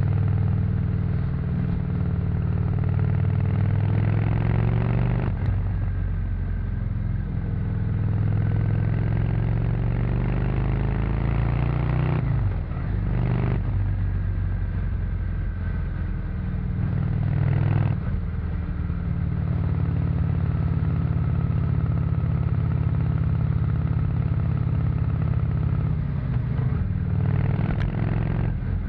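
Honda VT 600 C Shadow's 583 cc V-twin running through its stock exhaust while riding, the engine note climbing and then dropping or breaking off about four times.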